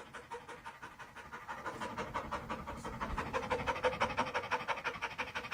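Dog panting rapidly in an even rhythm of about eight or nine breaths a second, growing louder about a second and a half in.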